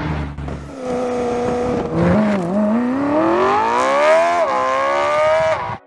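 Car engine accelerating, its pitch climbing steadily and dipping briefly twice before it cuts off suddenly at the end.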